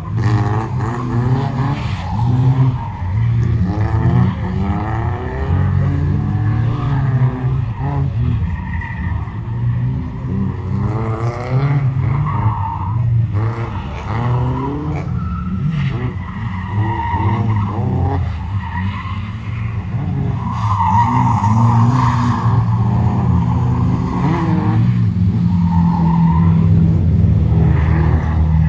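Car engine revving up and down over and over as it is driven hard through a tight cone slalom, with brief tire squeals now and then in the turns.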